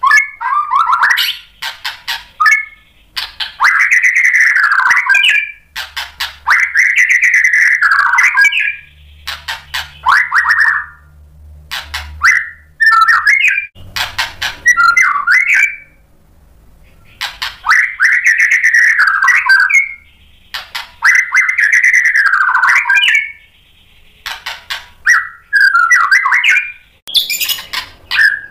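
Male white-rumped shama (murai batu) singing loudly in full song. The song is a series of arching whistled phrases of one to two seconds each, several nearly repeated, broken by quick chattering runs of short notes and brief pauses.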